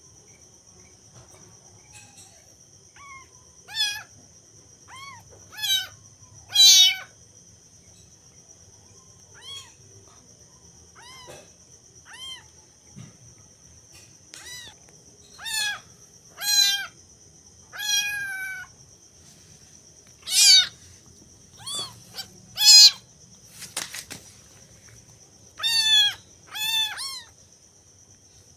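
Young kittens meowing again and again in short, high, rising-and-falling calls, some of them loud, over a steady high-pitched whine.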